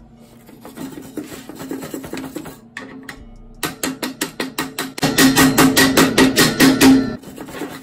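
Background music with a steady drumbeat of about five beats a second, coming in stronger a little past halfway and loudest near the end.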